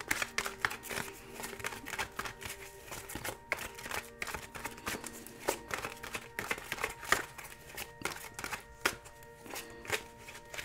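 Tarot deck being shuffled by hand: quick, irregular card snaps and taps throughout. Soft background music with steady held tones runs underneath.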